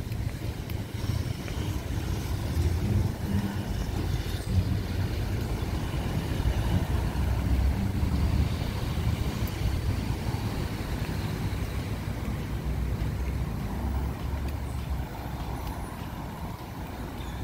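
Street traffic with a city bus's engine running close by: a steady low rumble.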